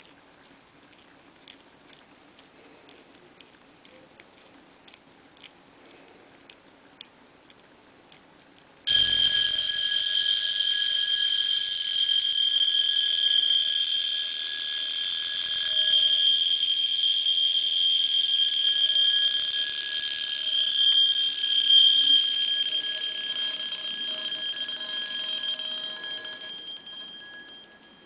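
Pre-1920 Zenith mechanical alarm watch going off. After a few faint clicks, a loud, steady, high-pitched metallic ringing starts suddenly about nine seconds in, holds for about fifteen seconds, then fades away near the end.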